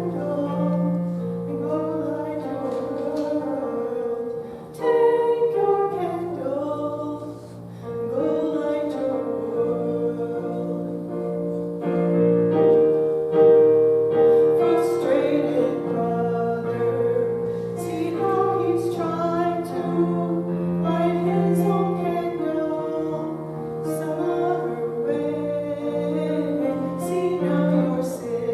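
Women's voices singing a slow song over sustained keyboard accompaniment.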